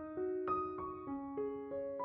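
Background piano music: a slow, gentle melody of single notes struck about three times a second, each ringing on under the next.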